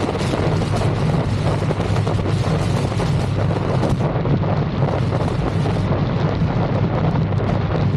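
Steady wind rush buffeting the microphone as an electric motorcycle rides along at road speed, with no engine note to be heard, only an even, deep rushing noise.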